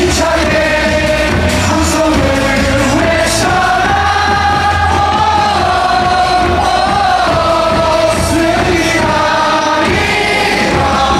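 A stadium crowd of baseball fans singing a cheer song together over loud amplified music from the stand's speakers.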